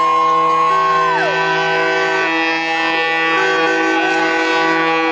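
Several ships' and boats' horns held together in a steady chord, the tones changing every second or so, with a siren-like tone sliding down about a second in: vessels sounding a salute for a tall ship passing under Tower Bridge.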